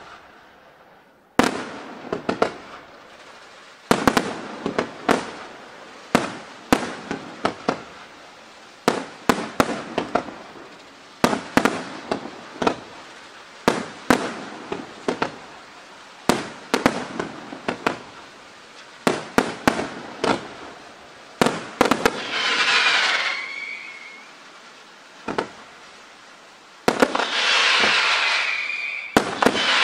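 Fireworks display: aerial shells bursting in a rapid run of sharp bangs, often several in quick succession. About 22 seconds in, and again near the end, a dense hissing crackle swells up, the first with a falling whistle.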